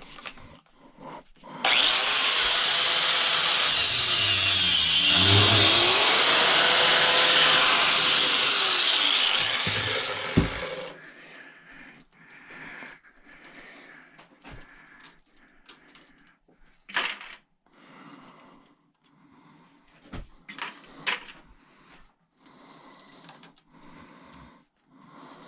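Power saw cutting through scrap for about nine seconds, its motor pitch dropping under load partway through the cut and recovering before it cuts off. Afterwards, scattered light clicks and clunks of metal scrap being handled.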